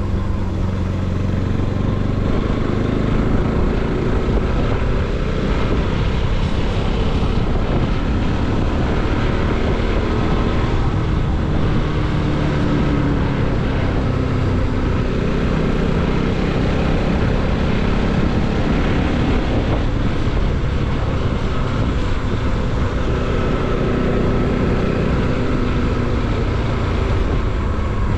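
Bajaj Pulsar NS200 single-cylinder motorcycle engine running under way, its pitch gently rising and falling with the throttle, over steady road and wind rush.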